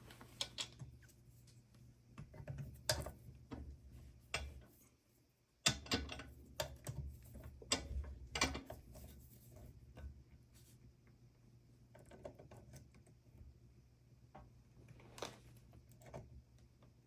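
Irregular small clicks and taps of metal and plastic as the steel blade of a pumpkin-carving saw is pried and forced at in its plastic handle. The sharpest click comes about six seconds in, over a low steady hum.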